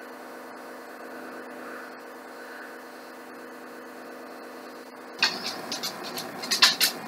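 Steady electrical mains hum. About five seconds in, rustling and several sharp light clicks of hands handling parts and packaging on the workbench come in over it.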